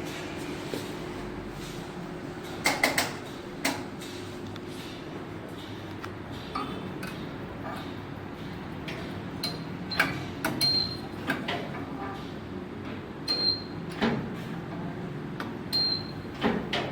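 Spot welding machine at work welding sheet metal onto angle iron: a series of sharp metallic clacks and knocks, with a few brief high-pitched tones in the second half, over a steady hum.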